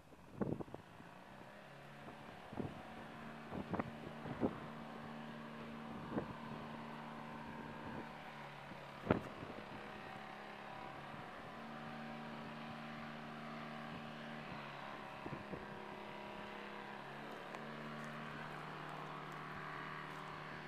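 Kitfox light aircraft's engine and propeller running steadily in the distance, a low droning hum that grows gradually louder. Several short knocks sound in the first half.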